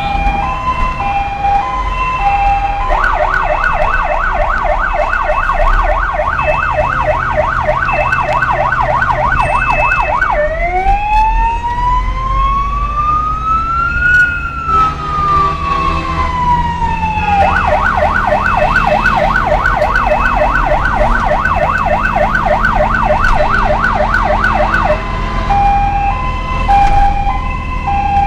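Emergency-vehicle siren cycling through its modes: an alternating hi-lo two-tone, then a fast yelp of about four sweeps a second, then one slow wail rising and falling, the fast yelp again, and back to the two-tone near the end. Heard from inside a vehicle's cab over a low engine hum.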